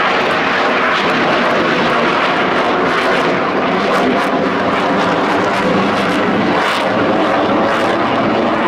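Loud, steady jet noise from the F/A-18 Super Hornet's two General Electric F414 turbofan engines as the fighter flies its airshow demonstration.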